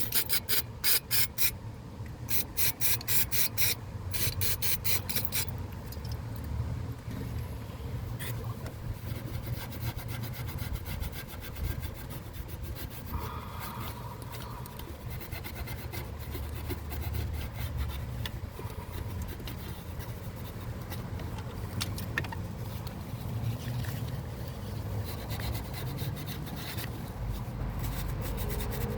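Hand scrubbing and rubbing on engine parts being cleaned with brake cleaner. Three quick runs of rapid strokes come in the first five seconds, then quieter, uneven rubbing and scraping.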